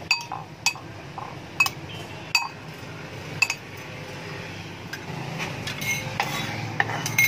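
Metal fork and spoon clinking against a ceramic bowl while stirring chopped tomatoes, onion and ginger in vinegar and soy sauce. Five sharp ringing clinks over the first three and a half seconds, then softer scraping and stirring, with one more clink near the end.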